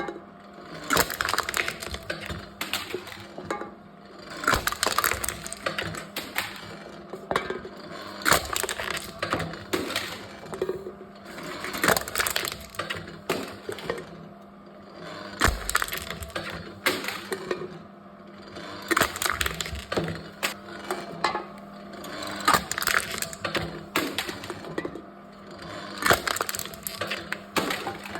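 Aluminium cans being crushed by a can-crushing machine, each crush a cluster of crackling, crumpling crunches, about one every three and a half seconds. A steady hum runs underneath.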